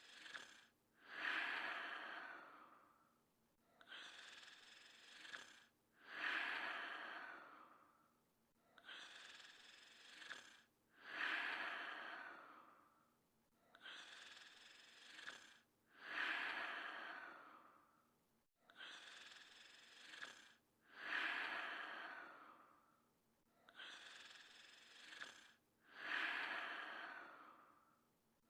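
Cartoon sleeping-snore sound effect, breathy rather than rumbling: a fainter breath in, then a louder hissing breath out that trails off, repeating evenly about every five seconds.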